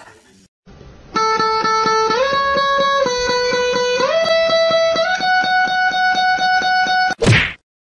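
Music: a guitar-like held note picked rapidly, about five times a second, its pitch stepping up and down a few times and mostly rising. It is followed by a short, loud noisy swoosh near the end.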